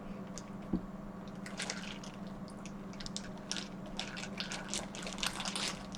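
Wet, squishy clicks and smacks of a buttery seafood boil being picked apart and eaten close to the microphone: a single thump about a second in, then a dense run of short wet clicks.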